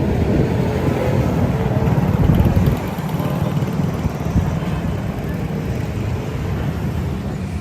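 Road traffic noise: vehicle engines running close by, a steady low rumble that eases a little about three seconds in.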